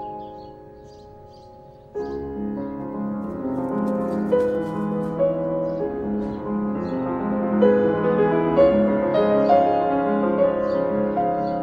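Classical piano music: a soft held chord fades, then about two seconds in a louder, busier passage of many notes begins.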